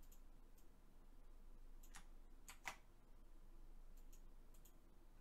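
Faint, scattered clicks of a computer mouse and keyboard, the strongest a little under three seconds in, over a low steady hum and near silence.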